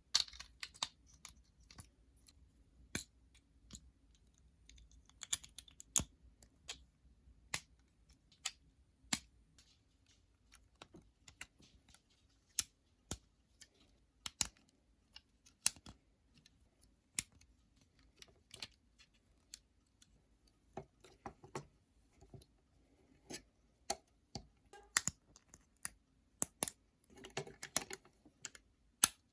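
Plastic Lego pieces clicking and snapping together as they are handled and pressed on, in irregular single clicks. Twice, about five seconds in and near the end, there is a short rattle of loose pieces.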